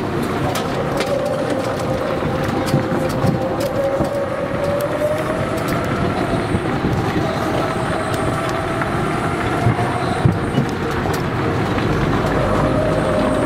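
Golf cart on the move: steady travel noise with a faint whine that slowly rises and falls in pitch, and a few scattered sharp clicks.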